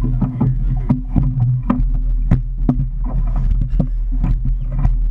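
Motorboat engine idling with a steady low hum, under frequent irregular knocks and splashes as people clamber off an inflatable tube onto the boat's swim platform.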